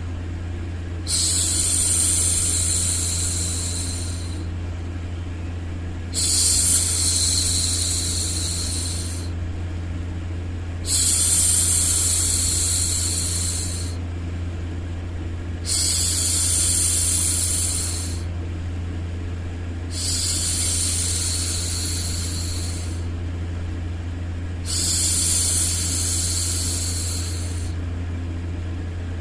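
A woman's voice making long, repeated 'shhh' hushing sounds, six in all, each about three seconds long and a second or two apart, over a steady low-pitched white-noise hum.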